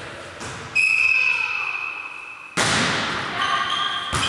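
Referee's whistle blowing one long, steady blast, then a loud slap of a hand striking a volleyball about two and a half seconds in, echoing around a large sports hall, with a sharp second hit of the ball near the end.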